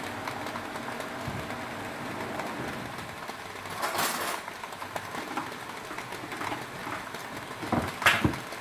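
Steady hiss and rumble of a gas stove burner heating a foil-wrapped fish on a wire grill rack. A brief louder hiss comes about four seconds in, and a sharp clatter comes near the end.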